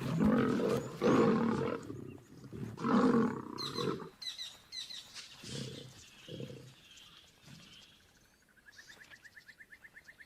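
Two male lions fighting, snarling and roaring in loud, rough bursts for the first few seconds, then a few shorter growls that die away.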